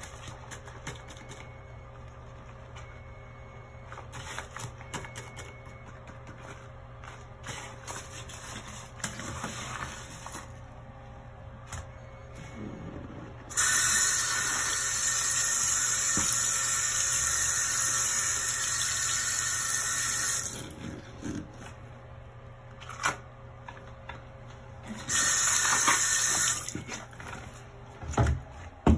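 Faint, irregular scrubbing of a sponge on a bathroom sink. About 13 seconds in, the faucet is turned on and water runs steadily into the basin for about seven seconds. A second, shorter run of water follows, and there is a thump near the end.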